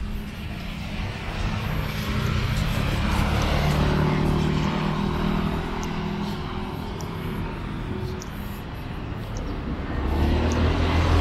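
Street traffic: motor vehicles passing one after another, their engine hum swelling and fading, with one engine speeding up near the end.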